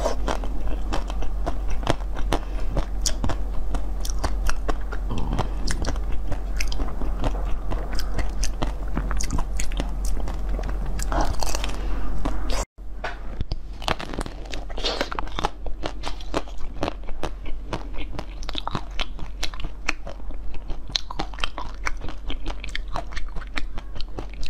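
Close-miked biting and chewing of a mango-shaped treat with a green shell and orange inside, full of rapid small crunching crackles over a steady low hum. The sound cuts out for an instant about halfway through.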